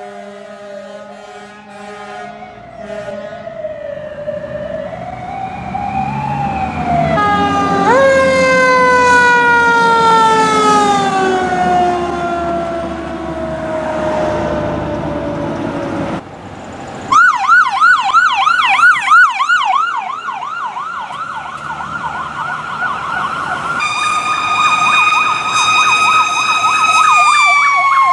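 Fire truck sirens in several passes: a steady horn-like tone at first, then a siren gliding up and down, rising sharply about seven seconds in and sliding slowly down in pitch. After a sudden cut comes a fast warbling yelp, joined about four seconds before the end by a steady wail that begins to fall.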